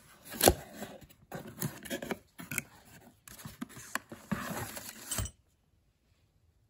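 A cardboard box being unpacked: flaps scraping open, paper packing crinkling, and a brass pressure reducing valve lifted out. It is an irregular run of scrapes and small knocks, the sharpest about half a second in, and it stops about five seconds in.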